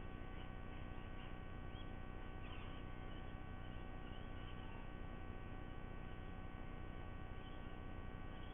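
Steady electrical hum made of several steady tones over a faint hiss, with a few faint, brief chirps on top now and then.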